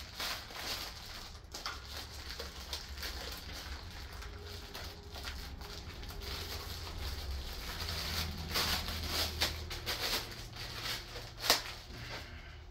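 Plastic packaging crinkling and webbing rustling as a green lifting sling is unwrapped and handled, in a run of small irregular rustles and taps with one sharper snap near the end.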